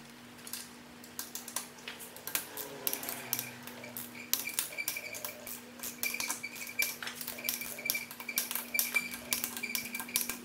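Ratchet of a torque wrench clicking in quick irregular runs of sharp metallic clicks as the camshaft bearing cap bolts are tightened down, over a faint steady hum.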